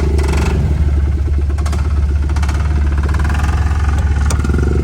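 Off-road vehicle engines running with a steady low rumble; a higher, steady engine note stops just after the start, leaving a rougher, uneven running sound.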